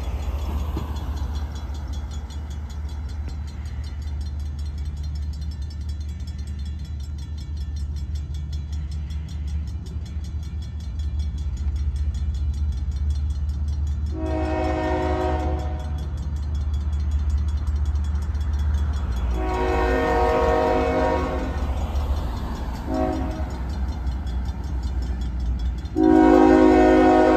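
Horn of the lead locomotive, BNSF 7234, sounding the grade-crossing pattern as the stack train approaches: two long blasts, a short one, then a louder long one starting near the end. The horn is a chord of several tones, over a steady low rumble from the train.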